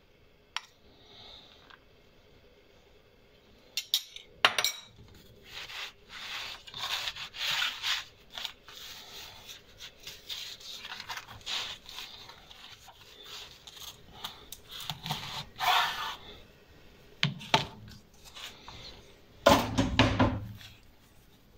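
Metal spoon scraping and clinking in a ceramic bowl and spreading filling over dough on a wooden board: irregular scrapes and small clicks starting a few seconds in, with a louder thump near the end.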